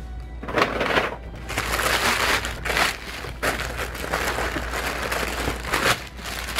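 Tissue paper crinkling and rustling in a run of irregular handfuls as it is pulled back and folded open to unwrap a pair of sneakers in their cardboard shoebox.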